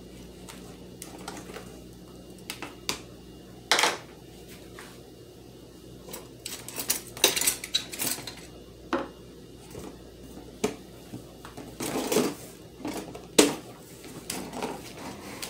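Metal kitchen utensils and spoons clinking and clattering irregularly as someone rummages among them for a big spoon, with a few louder knocks about four seconds in, around the middle and near the end.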